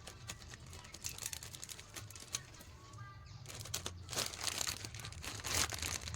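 Plastic packaging crinkling and rustling as it is handled, in quick crackles that grow denser and louder in the second half.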